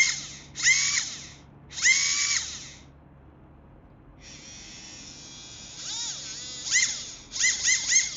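Acuvance Fledge 10.5-turn sensored brushless RC motor, just rebuilt, run under ESC control in short throttle bursts: a high whine that rises in pitch on each blip, with a quieter steady whir in the middle and three quick blips near the end.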